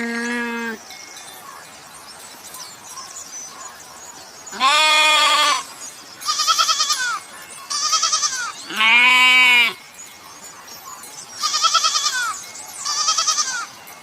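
Goats bleating, about seven calls with short gaps between them. The calls mix deeper bleats with higher, quavering ones.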